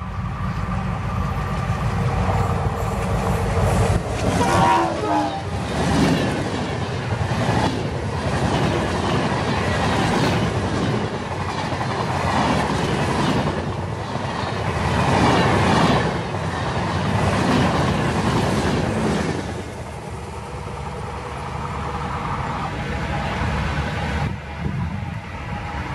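Indian Railways WDM3A diesel-electric locomotive running past at speed with a Shatabdi Express rake of LHB coaches. The engine grows louder as it approaches, then fast clickety-clack of wheels over rail joints as the coaches rush by, easing off near the end as the train recedes.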